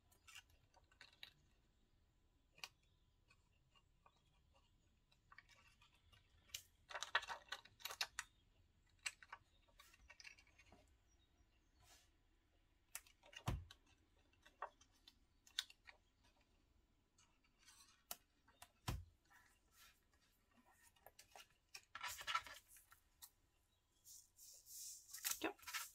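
Faint, scattered clicks and scratches of metal tweezers picking adhesive enamel dots off their plastic sheet and pressing them onto a paper card, with two soft thumps on the table midway. Near the end comes a short stretch of rustling as the card is picked up and handled.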